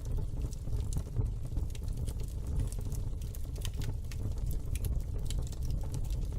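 Wood fire crackling in a fireplace: irregular sharp pops and clicks over a steady low rumble.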